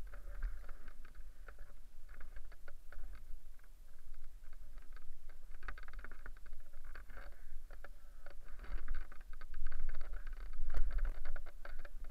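Rustling and crackling of an Edel Space Classic paraglider wing and its lines being handled and gathered up through dry brush: many short irregular clicks and scrapes, with wind buffeting the helmet microphone.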